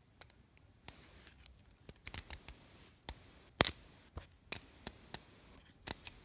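Small plastic toy pieces being handled, making irregular sharp clicks and taps, about a dozen, the loudest about three and a half seconds in.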